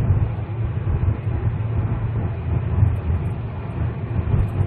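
Steady low rumble of road and engine noise inside the cabin of a 2004 SsangYong Chairman sedan driving at speed.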